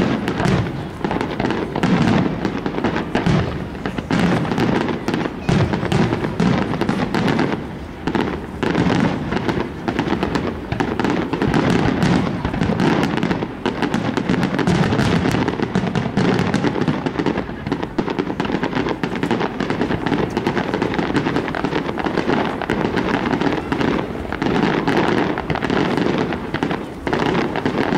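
Aerial fireworks display: shells going off in a dense, continuous barrage of bangs and crackle.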